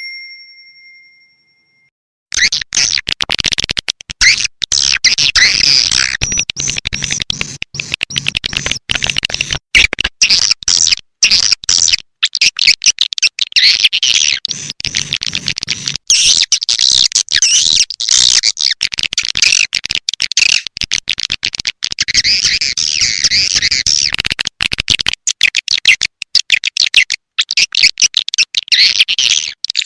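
Swiftlet call playback: a dense, chattering flock of edible-nest swiftlets twittering in high, fast chirps, the kind of lure recording played to draw swiftlets into a swiftlet house. A short ringing tone fades out at the start, and the chirping begins about two seconds in.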